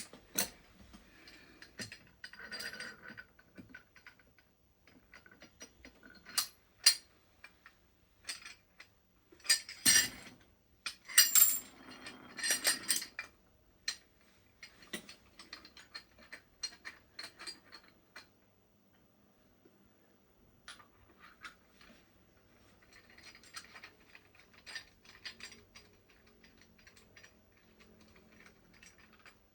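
Irregular metal clinks, knocks and rattles as a makeshift press (a coil-spring compressor with a top mount and washer) is handled and lined up over a wheel hub bearing race. There is a cluster of louder clanks about ten to thirteen seconds in, then softer scraping and rattling.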